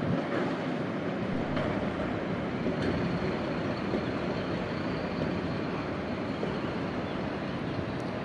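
Steady street traffic noise with a tram passing, a continuous wash of road and rail sound, with a faint high whine joining about three seconds in.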